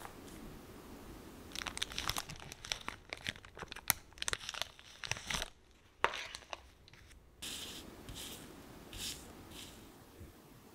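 Clear plastic sticker packets crinkling and crackling as they are handled and opened, with dense sharp crackles for several seconds, followed by softer rustling of loose paper stickers being sorted by hand.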